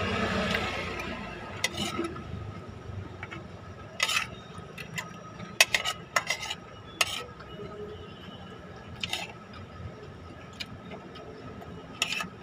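Metal spoon clinking and scraping against a plate as food is scooped up, a sharp click every second or so. A swell of noise in the first second or so.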